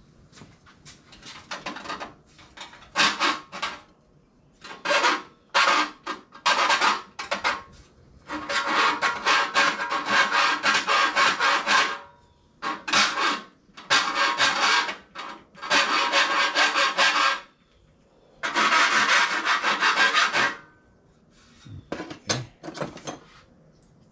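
Hand file rasping back and forth on the steel edge of a bicycle fender patch piece, trimming it to fit snugly before welding. It comes in runs of rapid scraping strokes, a few short ones at first and then several longer runs of two to four seconds with brief pauses between them.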